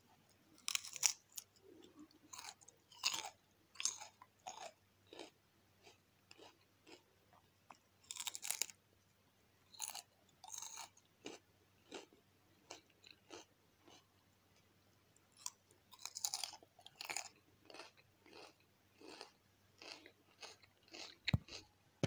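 A person biting into and chewing crunchy food: irregular crisp crunches, clustered in bouts with short pauses, and a few louder bites among them.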